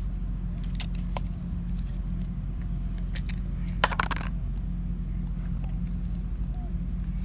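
Steady low hum with a few light clicks and a short rustle about four seconds in, from small plastic toy capsules and figures being handled.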